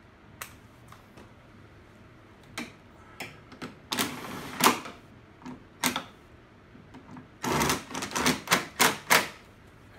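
Cordless drill with a socket extension driving bolts in short bursts, with sharp clicks and rattles of the socket and hardware; the bursts come thickest near the end.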